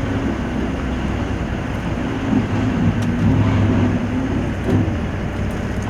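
Steady low rumble of street noise, with indistinct voices mixed in.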